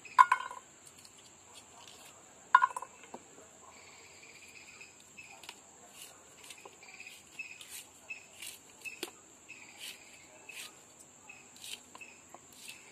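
Crickets chirring steadily in a high, continuous tone, with two short ringing clinks in the first three seconds. After that come soft scraping and small clicks of jackfruit being cut against an iron blade and the seeds handled.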